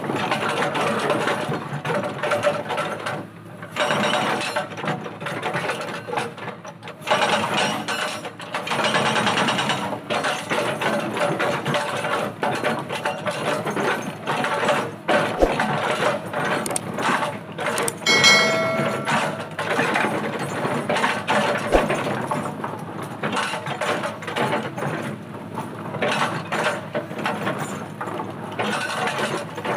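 Excavator-mounted hydraulic breaker hammering rock: a rapid, continuous chatter of chisel blows, with short breaks about three and a half and six seconds in. A short ringing tone sounds about two-thirds of the way through.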